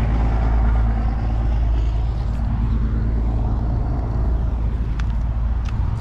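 Low, steady rumble of a car engine running close by, with a faint rise and fall in pitch around the middle. Two sharp clicks near the end.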